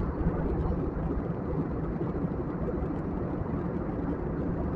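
Cabin noise of a jet airliner in cruise: a steady rush of engine and airflow noise, heaviest in the low end.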